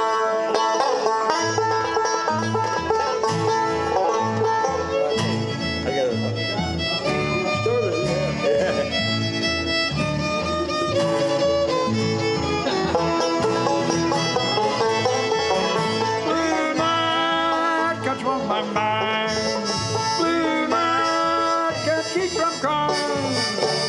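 Live bluegrass band playing an instrumental passage: strummed acoustic guitars and picked five-string banjo with a bowed fiddle playing melody over them.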